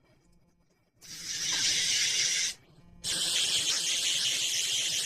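Electric pet nail grinder sanding a dog's claws: a high, hissing grind in two passes. The first starts about a second in, a short break follows, and the second begins about three seconds in.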